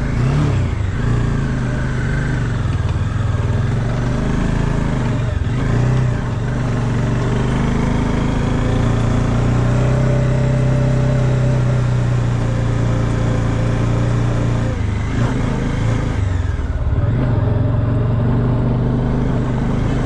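Bajaj Dominar 400's single-cylinder engine running under way at low road speed. Its pitch dips and picks up again a few times, about five seconds in and again near sixteen seconds, as the throttle is eased and reopened.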